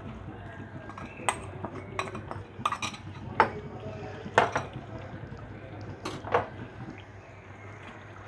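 A metal spoon clinking against a cooking pan, about eight sharp clinks as spices and fried onions are tipped into the pan, over a low steady hum.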